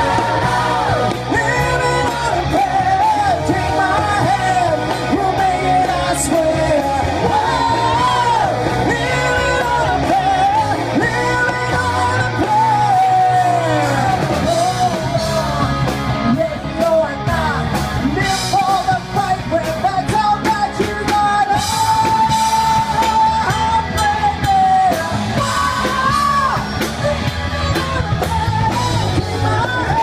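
Live rock band playing a song, with a lead singer's voice carrying the melody over bass, drums and guitar.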